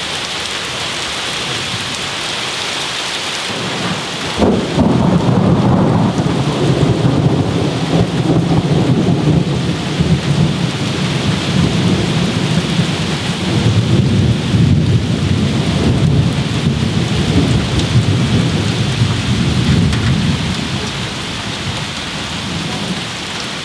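Steady heavy rain falls throughout. About four seconds in, a long roll of thunder breaks in and rumbles on for some fifteen seconds, rising and falling, then dies away and leaves the rain.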